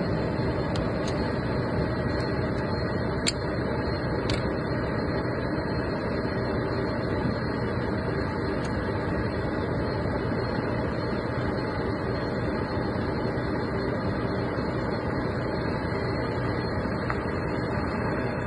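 A steady machine drone, with a few light clicks in the first few seconds and one more near the middle.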